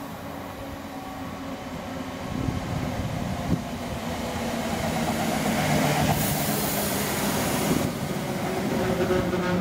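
Electric multiple unit approaching and running past close by, its hum and wheel-on-rail noise growing steadily louder. There is a single sharp click about three and a half seconds in, and a burst of high hiss as the carriages rush past.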